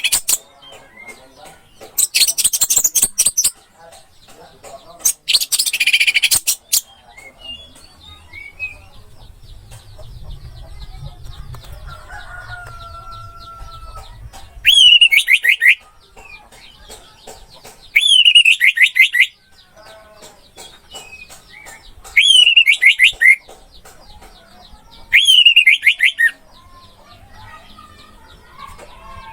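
Recorded songbird calls. There are three loud, harsh, buzzy bursts in the first seven seconds. After a quieter stretch comes a repeated falling phrase, about a second long, every three to four seconds.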